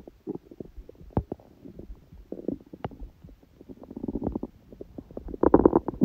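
Hungry stomach growling: irregular gurgles and small pops, swelling about four seconds in and growing loudest near the end.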